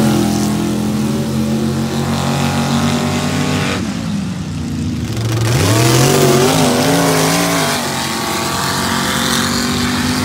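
Drag-racing pickup trucks' engines at full throttle on a dirt strip. They rev up hard off the line and hold a high steady pitch. About four seconds in the pitch drops away, then climbs again unevenly and settles.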